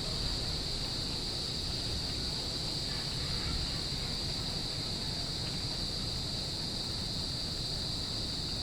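Crickets chirring in a continuous chorus, one unbroken high-pitched trill, over a steady low rushing noise.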